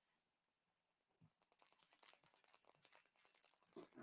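Near silence: room tone, with faint scattered ticks and a brief soft noise just before the end.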